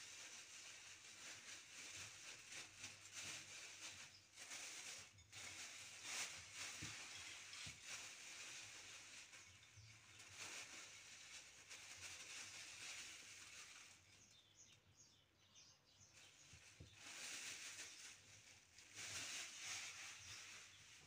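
Faint rustling and crinkling of a thin plastic bag as crushed walnuts are shaken out of it into a glass dish, with a few soft knocks.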